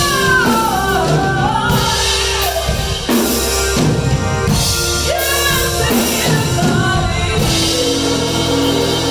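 Gospel song with a solo singing voice over keyboard and drums.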